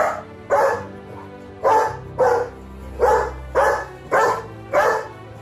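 German Shepherd barking, eight loud barks coming in rough pairs, over background music.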